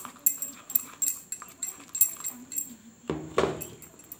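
Plastic spatula beating and scraping thick ghee-and-sugar cream against a glass bowl, in quick clinking strokes about three a second. A single louder noise of about half a second comes about three seconds in.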